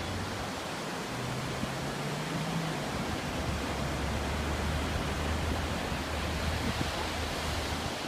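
Ocean surf breaking and washing on a beach, a steady rushing hiss. A low hum sits under it from about three and a half seconds in.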